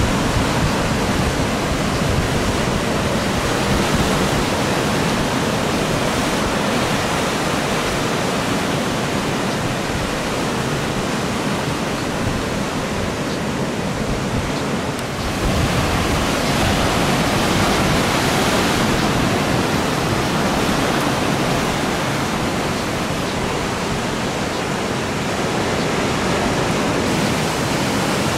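Steady roar of ocean surf breaking, a dense, even wash of noise that dips briefly about halfway through and then comes back brighter.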